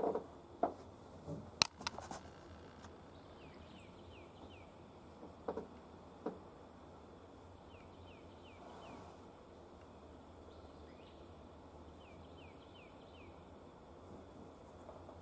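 Quiet outdoor ambience with small birds chirping in short runs of quick downward notes. A few small knocks and clicks come in the first six seconds, the sharpest about a second and a half in.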